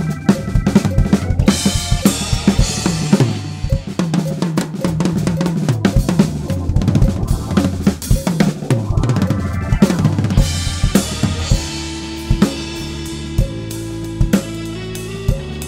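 Acoustic drum kit played in a fast solo, with rapid fills across toms, snare, bass drum and cymbals over a backing track with held bass and chord notes. About eleven seconds in, the drumming thins to a few single accented hits while the track's sustained chords carry on.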